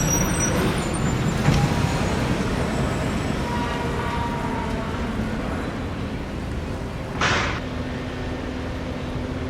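Road traffic with heavy trucks going by, a steady rumble that is loudest in the first couple of seconds. A short hiss about seven seconds in, then a steady low hum.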